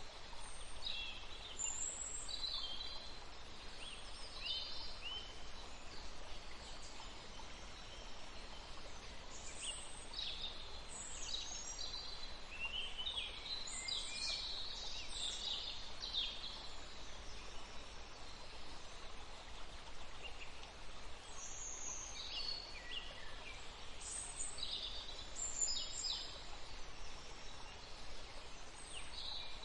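Steady hiss of flowing water, like a stream, with small birds giving short high chirps and trills over it in clusters; the birdsong falls away for a few seconds in the middle.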